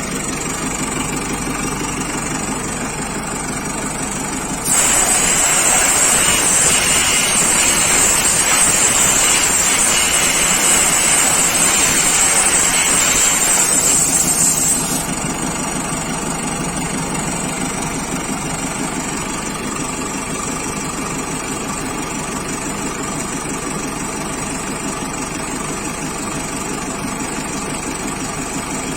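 JCB backhoe loader's diesel engine idling steadily. About five seconds in, a loud hiss starts suddenly over it, runs for about ten seconds, then cuts off.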